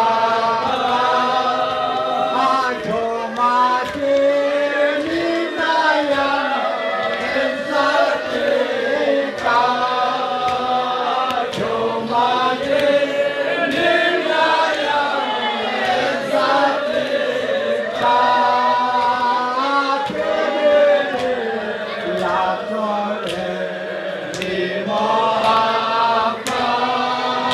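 A group of men chanting a devotional song together without instruments, in long held melodic phrases with short breaks between them.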